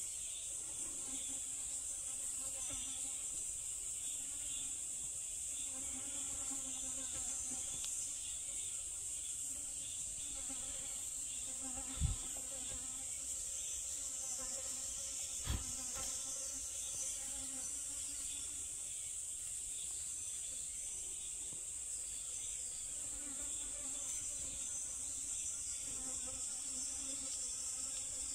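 Steady high-pitched drone of insects, with two brief low thumps about twelve seconds in and again three seconds later.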